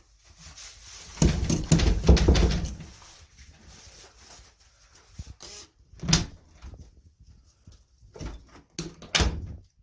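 A door lock and lever handle being worked: a burst of clunking and rattling about a second in, then single sharp latch clicks, the loudest about six seconds in and again near the end.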